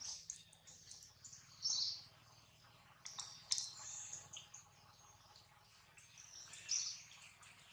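Short, high-pitched animal chirps and calls at intervals, three louder ones among fainter ones, with a few light clicks in between.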